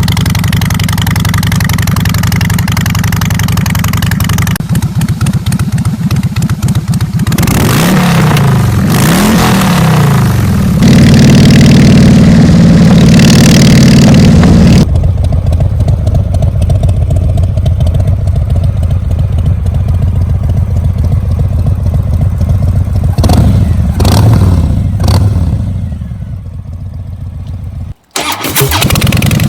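Harley-Davidson Breakout V-twin running at idle, with the throttle blipped twice about a third of the way in. It then holds a higher rev for about four seconds, the loudest part, and drops back to idle. Two more blips come later, and the sound cuts out briefly near the end.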